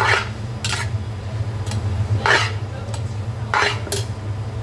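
Metal tongs scraping and clanking against the side of a large metal pot as stir-fried spaghetti is tossed. About five short strokes at uneven intervals, over a steady low hum.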